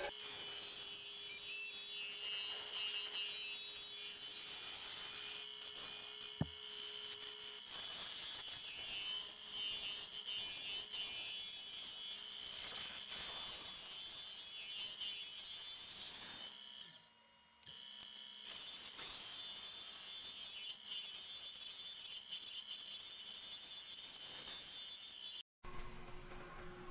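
Carbide-tipped turning tool cutting a spinning blank of colored pencils set in epoxy resin on a wood lathe: a steady, hissing scrape as shavings peel off the cut. The sound drops away briefly about two-thirds through and cuts off abruptly near the end.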